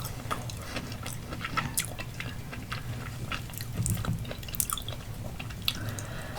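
Close-miked chewing of soft food, with wet mouth clicks and smacks.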